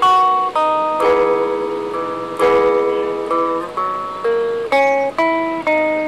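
Gretsch hollow-body electric guitar played solo fingerstyle through a small amp: chords and melody notes plucked about twice a second, each left to ring out.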